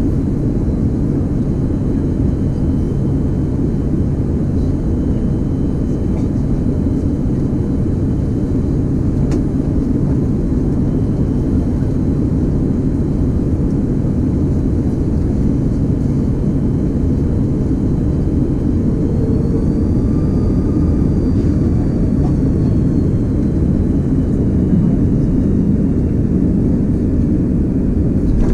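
Airbus A330-200 cabin noise: a steady rumble of engines and airflow heard from inside the cabin, with a faint whine that rises and falls about two-thirds of the way through.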